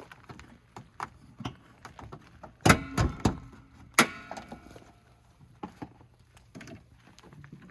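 Scattered light clicks and knocks, with a loud cluster of knocks about three seconds in and a sharp clank about a second later that rings briefly like metal.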